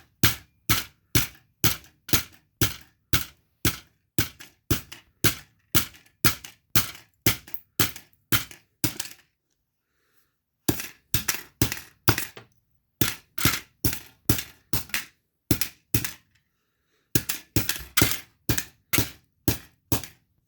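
Repeated sharp blows against an all-plastic toy to split it open, about two a second, stopping twice for about a second.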